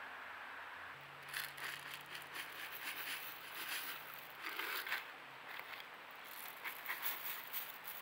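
Birdseed poured from a container into a wooden tray feeder, the seeds landing in a dense rattling patter. There is a short pause between a pour of mixed seed and a pour of sunflower seeds.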